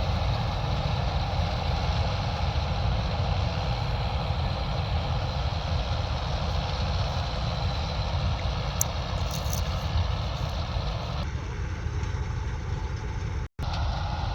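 Combine harvester engine running steadily, a continuous drone that shifts slightly about 11 seconds in and cuts out for an instant near the end.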